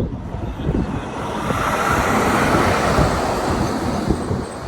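A vehicle passing by on the road: a rushing noise that swells to a peak about midway and then fades, over a low rumble.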